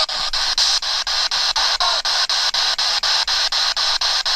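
Spirit box sweeping through radio stations: a steady rush of static broken by short regular cuts, about five a second, as it steps from station to station.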